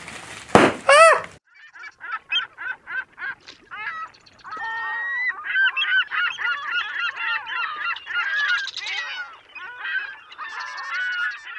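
A brief loud burst in the first second, then a flock of birds honking: short calls about four a second at first, thickening into many overlapping calls from about four seconds in.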